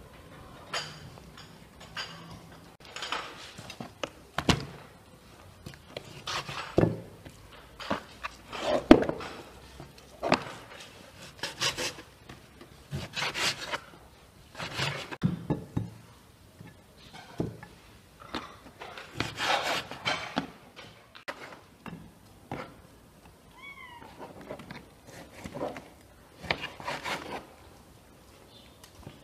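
Irregular knocks, scrapes and rubbing of raw beef being cut and handled by hand, in short bursts every second or two.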